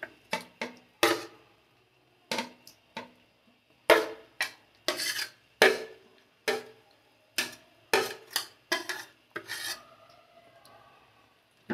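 Metal spatula scraping thick chicken curry off a ceramic plate into a pot of rice: a quick, irregular run of short scrapes and clinks that stops about ten seconds in.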